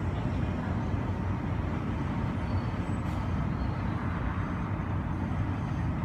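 Airport terminal ambience: a steady low rumble heard through the window glass, with no distinct events.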